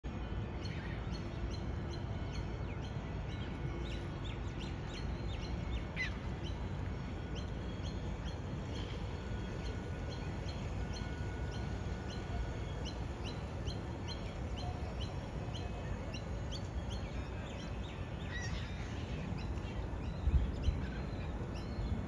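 Small birds chirping, many short high calls scattered throughout, over a steady low rumble; a couple of low thumps near the end.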